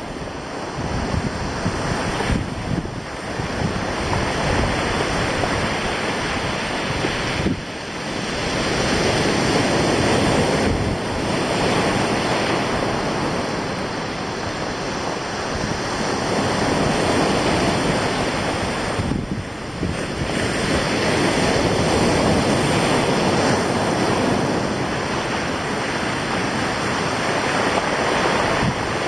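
Sea surf breaking and washing over a stony beach, swelling and easing every few seconds, with wind buffeting the microphone.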